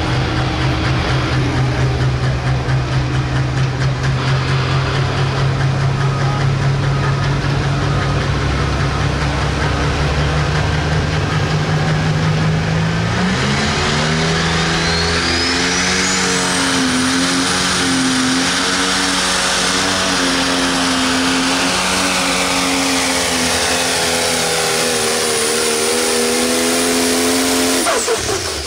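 Pro stock pulling tractor's turbocharged diesel engine running steadily at low revs. About halfway through it revs up and is held at high revs, with a turbo whine that climbs to a high steady pitch. The engine is cut off suddenly near the end.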